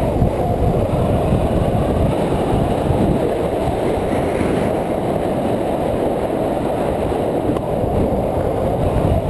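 Wind rushing over the microphone and longboard wheels rolling on asphalt at downhill speed: a steady low rush with no let-up.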